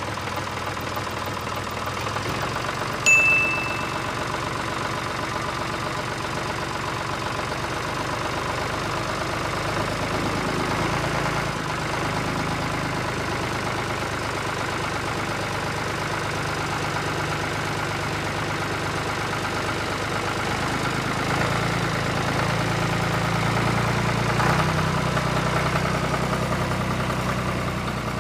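Tractor engine idling, steady with an even low pulse. A short bright ding sounds about three seconds in.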